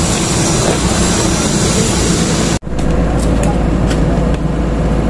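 Roadworks noise: a steady broad hiss, then, after a sudden cut about two and a half seconds in, an excavator's diesel engine running close by as a steady low drone, with occasional sharp knocks and faint voices.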